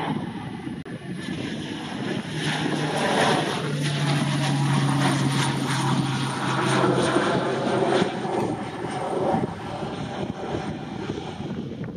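Sounds Air Pilatus PC-12's single Pratt & Whitney PT6A turboprop climbing out after takeoff and passing close overhead. A steady low propeller hum builds to its loudest in the middle, then fades away over the last few seconds.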